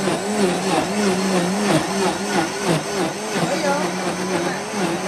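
Large high-power blender motor running steadily under a thick load of green herb mash, its pitch wavering up and down about three times a second as the heavy mix churns.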